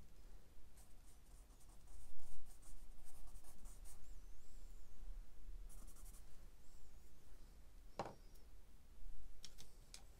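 Charcoal drawing on sketchbook paper: soft, faint scratching and rubbing as the charcoal is blended by fingers and worked with a drawing tool, with a single knock about eight seconds in.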